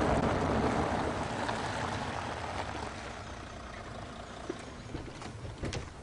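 Audi estate car driving up and slowing to a stop, its engine and tyre noise loudest at first and fading away, with a few small clicks near the end.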